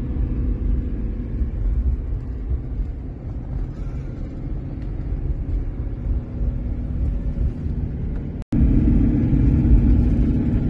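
Steady low road and engine rumble inside a moving car's cabin. About eight and a half seconds in it cuts out for an instant, then comes back louder.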